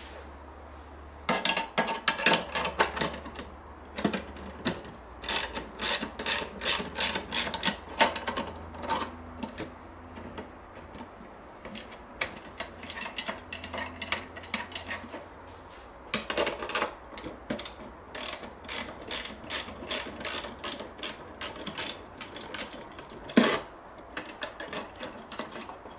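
Socket ratchet wrench clicking in runs of rapid clicks as the bolts holding a wooden cutting jig are loosened. A single louder knock comes near the end.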